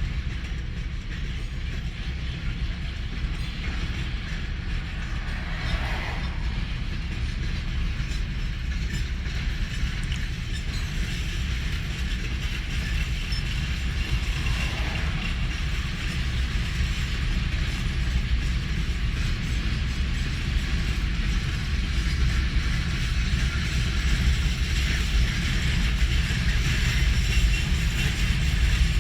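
Freight train rolling past: a steady rumble with the rattle and clicking of wagon wheels on the rails, growing slightly louder toward the end.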